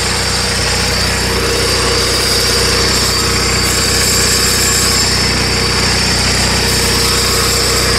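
John Deere garden tractor's engine running at a steady speed.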